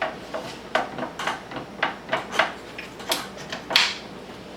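Makita plunge track saw being handled on its guide rail, unpowered: a series of light clicks and knocks from the saw's lever and base moving on the track, with one louder knock near the end.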